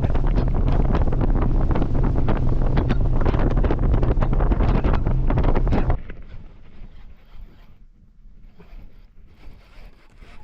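Heavy wind buffeting the microphone, cutting off abruptly about six seconds in and leaving a much quieter stretch with faint scattered ticks.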